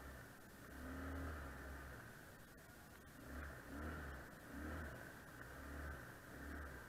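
ATV engine revved in short, repeated bursts as the throttle is opened and let off at low speed, the pitch rising and falling with each burst.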